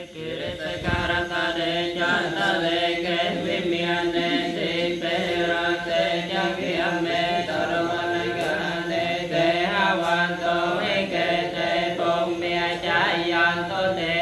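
Buddhist monks chanting Pali paritta verses together, a steady, unbroken recitation on a low held pitch.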